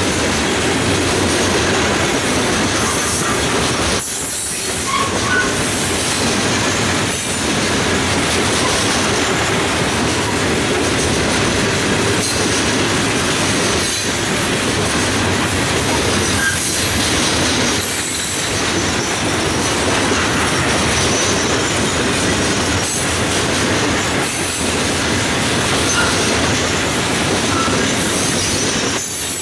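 Freight train of open-top hopper cars rolling past close by: a loud, steady noise of steel wheels on the rails with clatter over the joints. A few brief, faint wheel squeals sound now and then.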